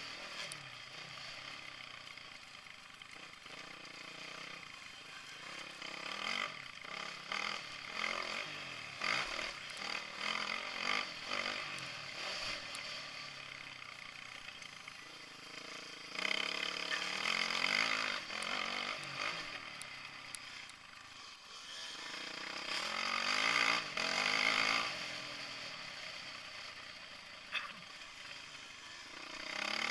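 Dirt bike engine revving up and down repeatedly as the bike is ridden over a motocross track, the pitch rising and falling with the throttle, with louder surges about halfway through.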